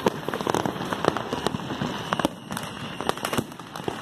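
New Year's fireworks and firecrackers going off all around: an irregular run of sharp pops and cracks over a constant crackle, with a few louder bangs.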